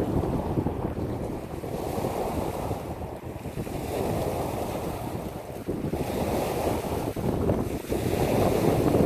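Waves breaking and washing over a pebble beach, the surf swelling and easing in surges every few seconds, with wind buffeting the microphone.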